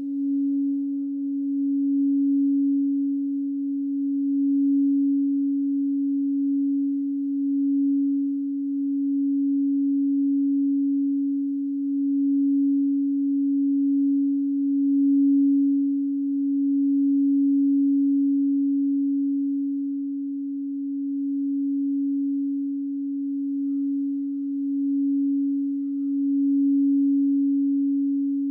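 Singing bowl held in one continuous, steady tone with faint higher overtones, its loudness gently swelling and easing every couple of seconds.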